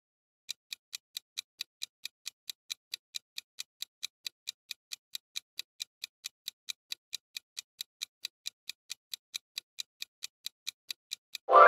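Countdown-timer clock ticking sound effect, an even tick-tock of about four to five ticks a second. Near the end the ticking stops and a sudden loud ringing tone sounds, the loudest thing here, marking that time is up.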